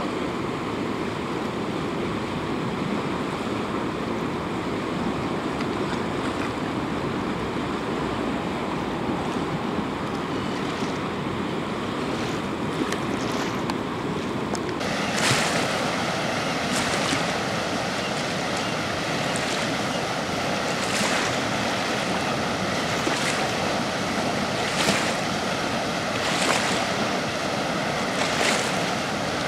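Steady rush of water flowing at a dam, with wind on the microphone. About halfway through the sound turns brighter and hissier, and brief louder surges come every second or two after that.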